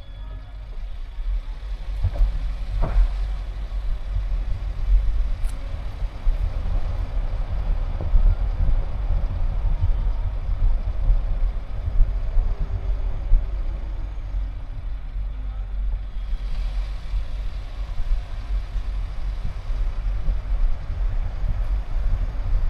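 Car driving along a road: a steady low rumble of engine and road noise, with more tyre hiss from about two-thirds of the way through.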